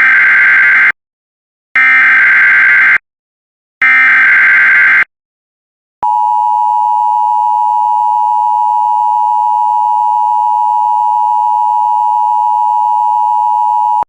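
Emergency Alert System header: three roughly one-second bursts of warbling SAME data tones about two seconds apart. About six seconds in, the steady EAS attention-signal tone starts and holds for about eight seconds. Together they mark the start of an emergency alert message.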